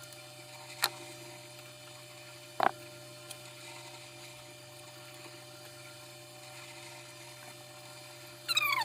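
Steady electrical hum, broken by two sharp clicks in the first three seconds. Near the end, high, bending animal cries begin.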